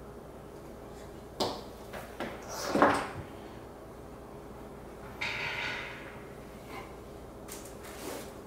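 Handling noises on a tabletop: a few light clicks, then a rising scrape that ends in a knock about three seconds in as a small part is set down, a brief rustle, and more light taps near the end.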